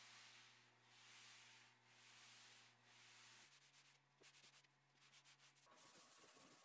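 A cloth buffing an oiled wooden tabletop by hand: faint rubbing in about three long, slow strokes, then quicker, shorter strokes, over a steady low hum.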